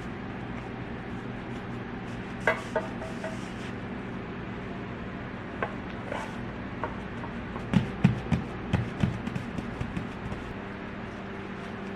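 A steady low hum with scattered clicks and knocks, then a quick run of louder thumps and knocks about eight seconds in.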